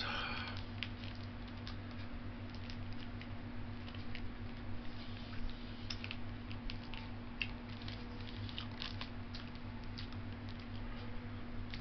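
A small Kraft grated Parmesan packet crinkling as it is torn open, squeezed and tipped out, with scattered small clicks and crackles over a steady low hum.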